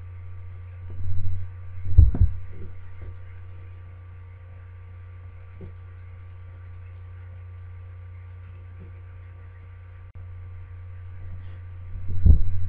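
Steady low electrical hum, with a few soft low thumps about one and two seconds in and again near the end.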